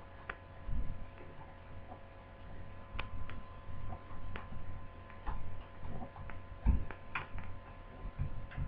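Small irregular clicks and light knocks of a screwdriver working the laptop's screen screws as they are checked for tightness, over a faint steady hum.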